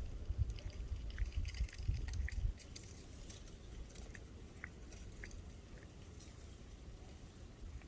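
Tortoiseshell-tabby cat grooming itself, with small wet licking clicks at irregular intervals. A low rumble runs under the first two and a half seconds, then stops.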